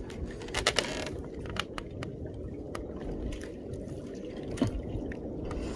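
Water sloshing at low level, with scattered sharp clicks and taps.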